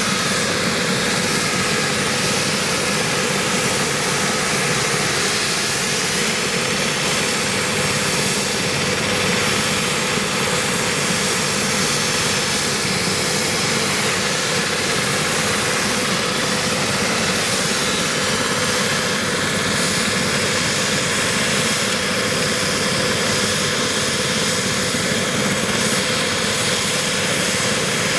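Eurocopter BK 117 twin-turbine helicopter running on the ground with its rotors turning. The turbines whine at a steady pitch over the rush of the rotors, unchanging throughout.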